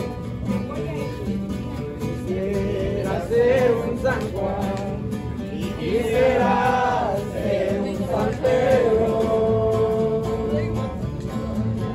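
Acoustic guitar strummed as accompaniment to a voice singing a slow song, with long held notes about three seconds in, around six seconds in, and in the second half.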